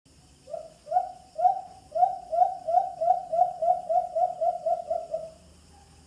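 White-eared brown dove advertising call, used to attract a mate: a series of about fifteen low hoots that start slow and come faster and faster, then stop abruptly.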